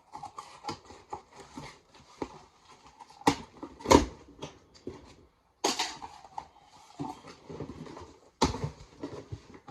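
Cardboard shipping box being torn open by hand: rustling and scraping of cardboard and packing with many small clicks, broken by several sharp rips or knocks, the loudest about four seconds in.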